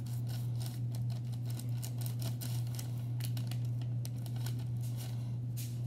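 Table knife cutting through soft cookie dough and tapping on parchment paper over the counter: irregular light clicks and paper rustles. A steady low hum runs underneath.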